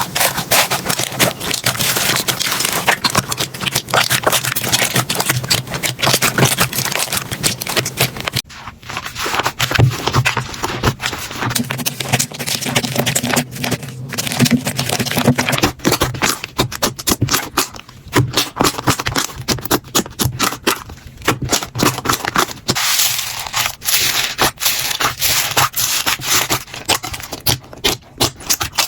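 Slime being squished and poked by hand, a dense run of small crackles, clicks and sticky pops.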